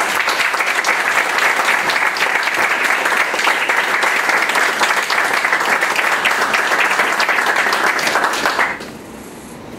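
A small group of people applauding with steady clapping that stops sharply near the end.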